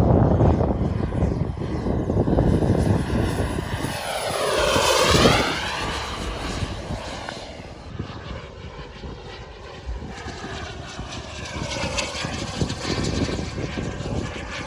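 Turbine engine of a radio-controlled MiG-17 jet model in flight. Its whine sweeps in pitch and is loudest as the model passes close about five seconds in, then fades, with a quieter pitch sweep on the next approach near the end.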